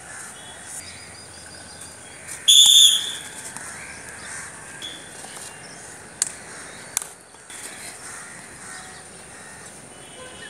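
A short, shrill whistle blast about two and a half seconds in: the coach's signal for the fielders to turn for a catch. A few seconds later come two sharp knocks.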